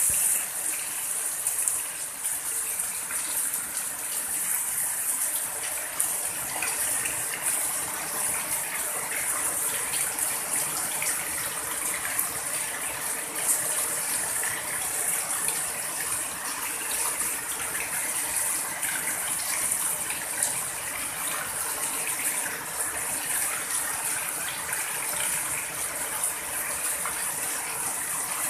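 Heavy rain falling on a house roof, with runoff pouring off the eaves in thick streams: a steady, dense hiss of water, full of small patters.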